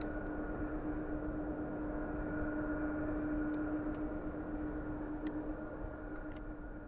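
Jet engines of a twin-engine airliner climbing away after takeoff: a steady rumble with a constant low hum and a fainter higher whine, easing off near the end as the plane recedes.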